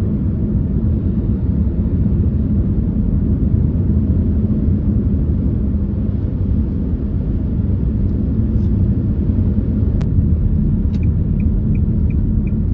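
Steady low road and engine rumble inside a moving car's cabin. A sharp click comes about ten seconds in, and shortly after a turn indicator starts ticking evenly, about two and a half ticks a second.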